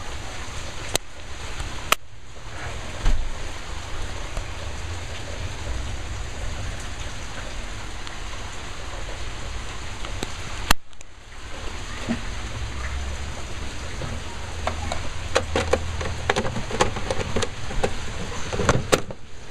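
Steady hiss and low rumble of handling noise on a hand-held camera microphone, broken by a few sharp clicks and knocks, with a louder knock about three seconds in and another near eleven seconds, and denser crackling and clicking over the last few seconds.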